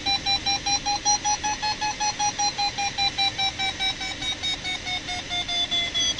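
Glider's audio variometer beeping in lift, a rapid train of about four to five beeps a second whose pitch edges up and then eases down again near the end, signalling the glider is climbing in a thermal. Underneath runs a low rush of air.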